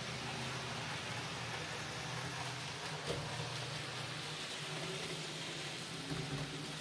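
N-scale model freight train running along the track: a steady rolling hiss with a low hum, a sharp click about three seconds in and a few low bumps near the end.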